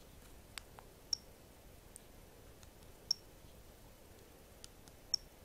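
Small plastic buttons on a cheap action camera clicked one at a time while stepping through its settings menu; three of the presses, about two seconds apart, give a short high key beep. Faint room tone between the presses.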